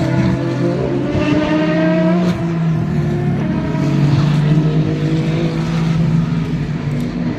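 Endurance race cars passing in close succession at racing speed. Several engines overlap, their pitch rising and falling as they go by.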